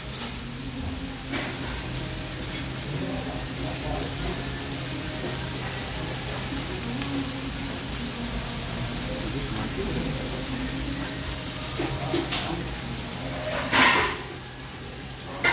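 Dakgalbi (chicken, cabbage and leeks in mala chili sauce) sizzling steadily on a round griddle pan as a wooden spatula moves it around. A brief louder noise comes near the end.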